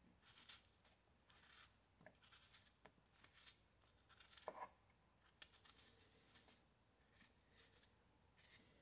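Near silence, broken by faint, scattered crisp cutting sounds and soft knocks as a knife slices pieces off a peeled apple held in the hand, the pieces dropping onto a pile of chopped apple.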